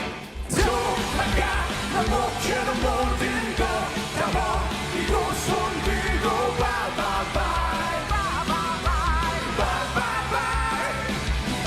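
Live rock band playing, with drums, bass and electric guitar under shouted, sung vocals. The band cuts out for a moment right at the start, then comes straight back in.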